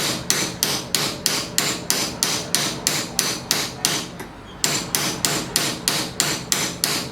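Small hammer striking metal in quick, even blows, about three a second, with one brief pause about four seconds in. The hammer is working at a stubborn, seized die-cast door handle mechanism that has been heated and still won't free.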